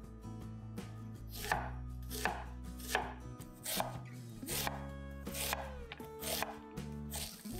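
A kitchen knife chopping vegetables on a cutting board in a steady series of strokes, about three every two seconds, over background music.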